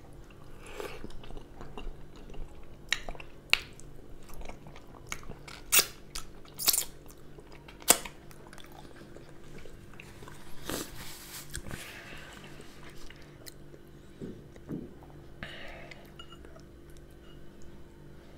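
Close-miked chewing of a deep-fried skin-on potato wedge: wet mouth sounds with several sharp, crisp crunches between about three and eight seconds in.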